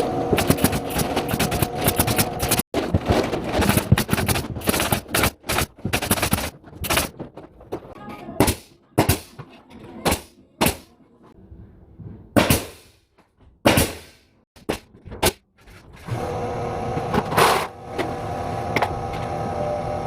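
Pneumatic nail gun (tacker) firing, first in a rapid run of shots, then single shots about a second apart. In the last few seconds a steady hum with a fixed tone takes over.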